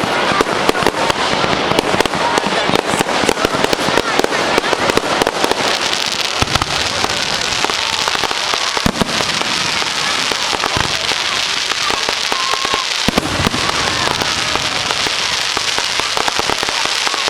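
Fireworks going off: a dense, continuous crackle of many small rapid bangs, with a few separate deep booms in the second half.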